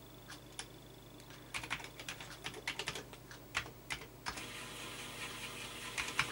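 Keys tapped on a computer keyboard, a quick run of clicks in the middle: typing a command to check the freshly formatted floppy disk. A steady faint noise follows for the last couple of seconds.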